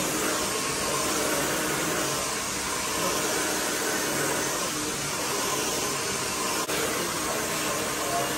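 Handheld hair dryer running steadily as hair is blow-dried and brushed into style: a rush of air over a steady motor hum, with one brief dip about two-thirds of the way through.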